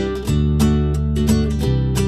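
Background music: an acoustic guitar strummed and picked over held bass notes, the chord changing about a third of a second in and again near the end.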